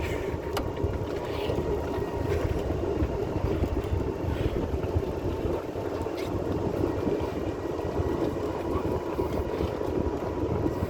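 Golf cart driving along: a steady rumble of the moving cart and its tyres, with wind on the microphone.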